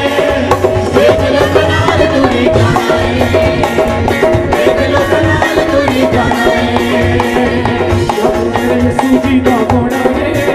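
Upbeat Punjabi Christian worship song in an instrumental stretch without singing, with a steady drum beat and hand percussion over held melody notes.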